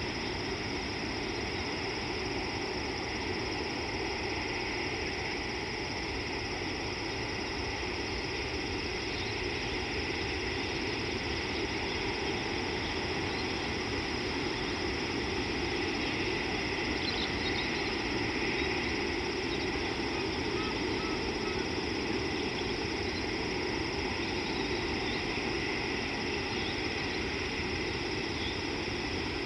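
Steady outdoor ambience with a constant high-pitched drone and a low rushing hiss, and a few faint chirps about halfway through.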